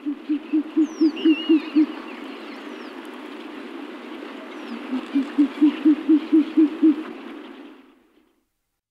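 Owl hooting: two rapid runs of low, even hoots at about five a second, the second run starting about five seconds in, over a steady background hiss. A few faint high chirps from a small bird come about a second in, and the sound cuts off near the end.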